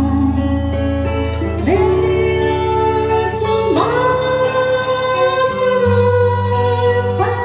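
A song with a singer holding long notes over guitar and bass accompaniment; new sung notes begin about two, four and seven seconds in.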